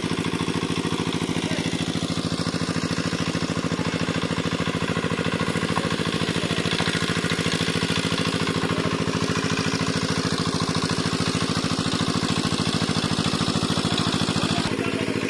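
A small engine running steadily, with a fast, even firing beat; its tone shifts slightly near the end.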